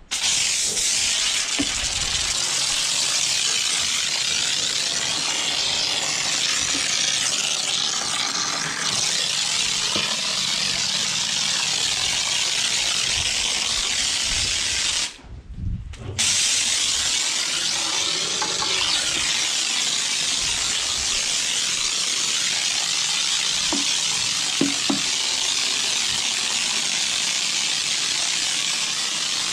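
Pressure washer spraying steadily with a loud hiss. It stops for about a second halfway through, then starts spraying again.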